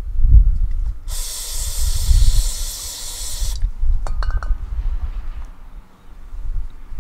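Aerosol carburetor cleaner sprayed onto a transmission drain magnet: one steady hissing burst of about two and a half seconds, starting about a second in and cutting off sharply. A few light clicks follow, over a low, uneven rumble.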